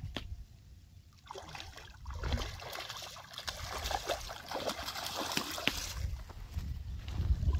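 Water trickling and splashing in small irregular drips and splatters, starting about a second in, with wind rumbling on the microphone at times.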